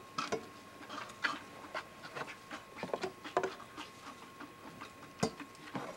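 Calves moving and feeding in a pen: irregular knocks, clicks and shuffles, with one sharp knock about five seconds in.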